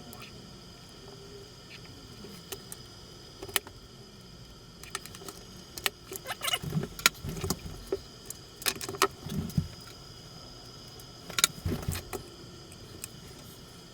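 Scattered clicks, taps and rattles of small plastic and metal parts being handled while a radio-controlled car chassis is taken apart. The clicks are busiest in the middle and again briefly later.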